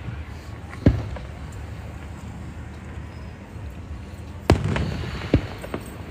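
Aerial fireworks bursting at a display: three sharp bangs, one about a second in and two close together near the end, the first of that pair followed by a short crackle.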